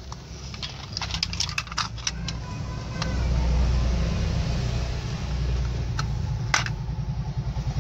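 Small plastic toy vehicles being handled: a run of light plastic clicks and rattles, then from about three seconds in a steady rolling noise as a toy truck is pushed along, with a few more clicks near the end.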